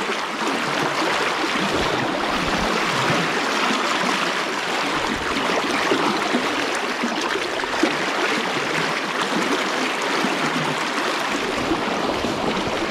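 Fast river current rushing and splashing around a wading angler's legs: a steady wash of moving water.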